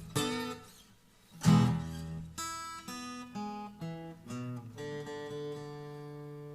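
Acoustic guitar played solo: a strummed chord, a brief pause, a second loud strummed chord, then single notes picked one after another and a last note left to ring.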